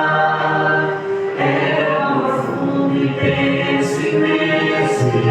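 Music: a worship hymn, with sung voices and accompaniment continuing between lines, a new phrase starting about a second and a half in.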